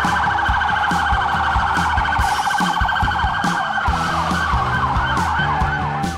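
Sirens of unmarked police vehicles in a convoy: a fast warbling yelp, with slower rising-and-falling wails crossing it from about halfway through. Background music with a steady beat plays underneath.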